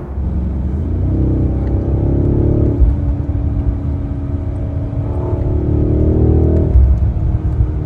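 BMW 760i's twin-turbo V8 under hard acceleration: the engine pitch climbs, drops at an upshift a little under three seconds in, then climbs again to a second shift near the end.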